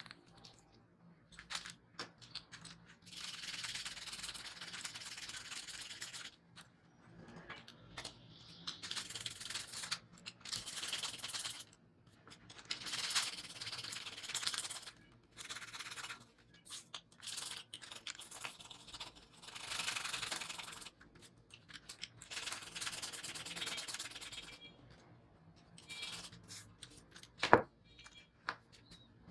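Toothbrush bristles scrubbing a small metal nameplate clean, in scratchy strokes that come in spells of one to three seconds with short pauses between them. A sharp click comes near the end.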